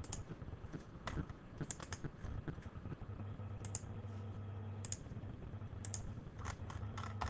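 Scattered, irregular clicks of a computer mouse and keyboard, some in quick pairs, over a low steady hum that comes in about three seconds in.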